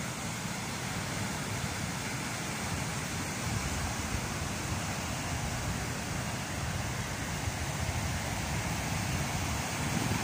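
Ocean waves breaking on a sandy beach: a steady rushing surf noise, with a low rumble of wind buffeting the microphone.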